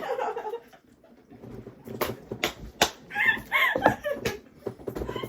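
A few sharp clicks, three about half a second apart near the middle, then a brief high-pitched squeaky sound with more clicks after it.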